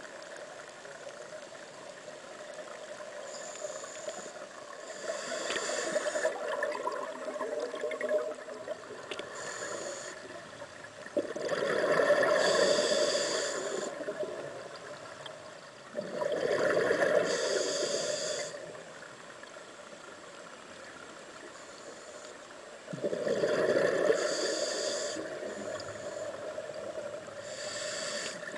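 Scuba diver breathing through a regulator underwater. Exhaled bubbles rush out in three loud bursts several seconds apart, each lasting two to three seconds, with a weaker burst early on and short fainter hisses in between.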